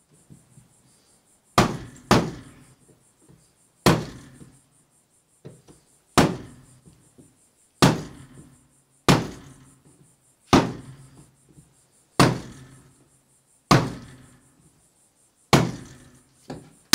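Hand hammer striking about ten separate blows, one every one to two seconds, each a sharp knock with a short ring after it.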